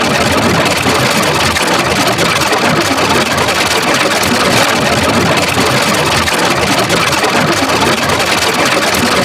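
Loud, steady, harsh buzzing noise from a heavily distorted 'duh' sound effect, unbroken and unchanging throughout.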